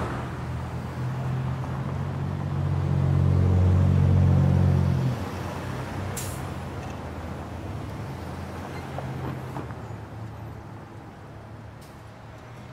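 City street traffic, with the low engine hum of a heavy vehicle that swells and then drops off sharply about five seconds in. A short hiss follows about a second later.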